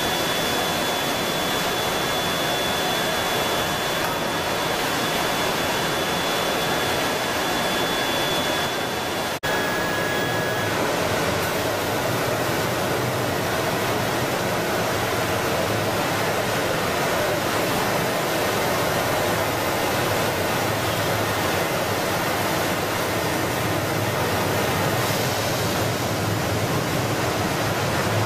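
Vortex D1 cook-quench-chill machine running: a steady rushing wash of water churning through its rotating perforated drum. A faint high steady whine over it stops about ten seconds in, just after a momentary dropout.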